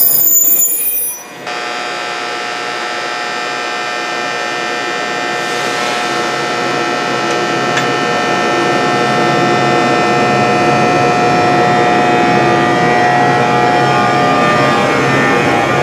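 NJ Transit Arrow III electric multiple-unit train moving off slowly, giving a steady whine of several tones over rumbling noise that grows gradually louder.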